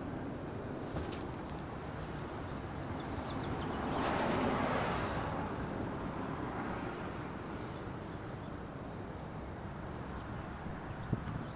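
Outdoor background noise: a steady low rumble that swells for a couple of seconds about four seconds in, with a few faint clicks.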